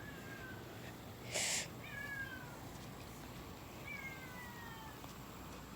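Domestic cat meowing faintly, three falling meows spread over a few seconds. A short burst of hissy noise about a second and a half in is the loudest moment.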